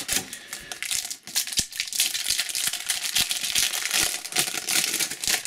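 Foil wrapper of a Match Attax trading-card pack crinkling and crackling as it is handled and torn open by hand, with many small sharp clicks.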